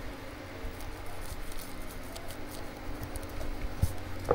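Microfibre cloth rubbing and patting over a GoPro camera body: faint scattered scuffs and light clicks, with a single louder soft knock near the end.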